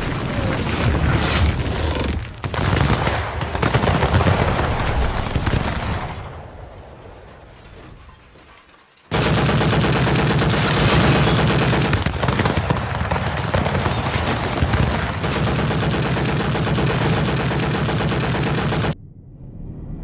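Cartoon sound effects of a rapid barrage of punches pounding a steel road roller: a dense, fast stream of heavy impacts. It fades away from about six seconds in, starts again suddenly around nine seconds, and cuts off abruptly near the end.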